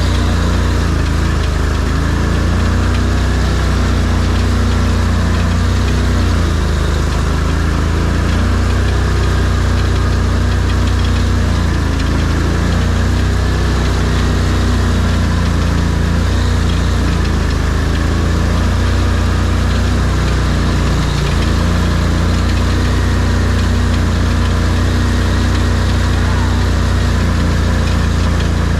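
ARGO amphibious off-road vehicle's engine running steadily as it drives, its pitch rising and falling a little with the throttle.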